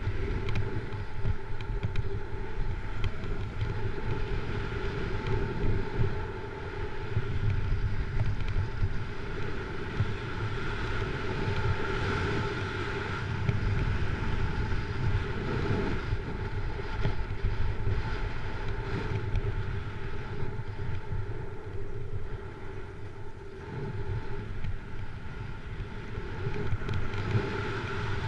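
Wind rushing over a GoPro and a snowboard sliding and carving over groomed snow during a steady downhill run, a continuous rush that swells and eases a little with the turns.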